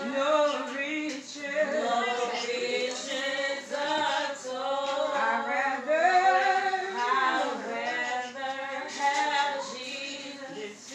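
A woman singing unaccompanied, holding notes that bend and slide in pitch, with no instruments behind her.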